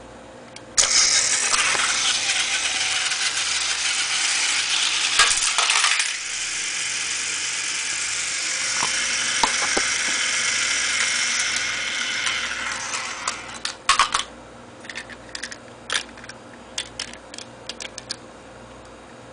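Battery-powered Plarail toy trains running on plastic track: a steady whirring rattle of their geared motors and wheels that starts suddenly about a second in and dies away near thirteen seconds. After it come scattered sharp plastic clicks and knocks.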